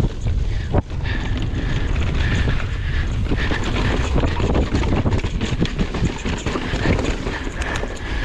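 Mountain bike descending a rough trail at speed: wind buffeting the microphone and a constant clatter and rattle of the bike over the ground, with a faint high whine coming and going.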